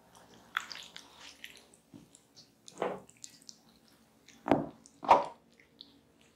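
Wet squelching of hands massaging fruit pulp over bare, oiled skin: small sticky crackles, with three louder squishes about three, four and a half, and five seconds in.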